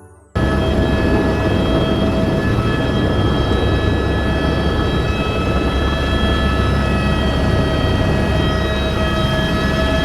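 Helicopter running steadily: dense engine and rotor noise with a steady high turbine whine. It cuts in suddenly about half a second in.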